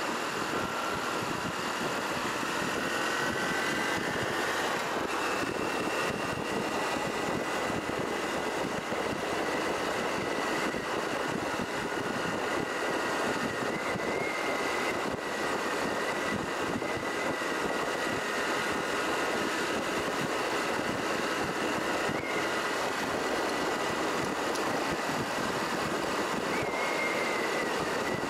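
Honda Cross Cub 110's small single-cylinder engine running while riding, under steady wind and road noise. Its pitch rises over the first few seconds, then holds steady with a few small lifts.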